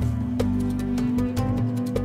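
Instrumental background music with held notes and a regular light beat.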